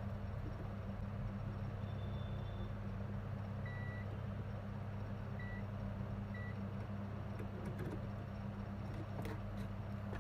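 Steady electrical hum from the repair bench with three short, high electronic beeps from a bench instrument in the middle, and a few faint clicks near the end.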